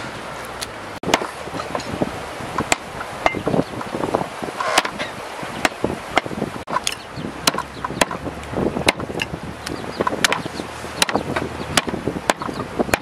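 Cleaver chopping raw chicken on a wooden chopping block: an irregular run of sharp chops, one or two a second.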